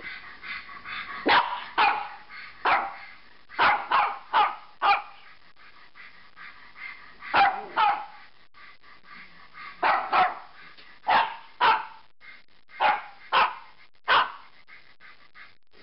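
Bichon frise barking: about sixteen sharp barks in irregular clusters of one to four, with pauses of a second or two between clusters.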